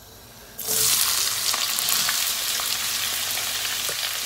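Chopped onions hitting hot oil in a frying pan, starting a loud sizzle about half a second in, with scattered small crackles as they spread in the oil.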